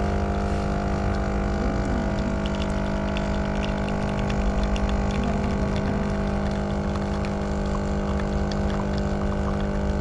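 Home espresso machine's pump running with a steady buzzing hum while espresso streams from the portafilter into the cup.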